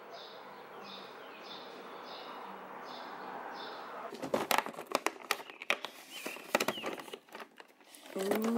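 Cardboard advent calendar door being pried open and handled, with sharp clicks and crinkling that start about halfway through. Before that, an outdoor background hiss with a faint chirp repeating about twice a second.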